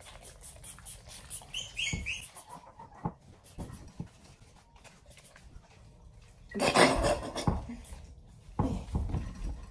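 Fragrance pump spray being sprayed onto the body in short hissing bursts, the loudest near the end, with a couple of brief high squeaks about two seconds in.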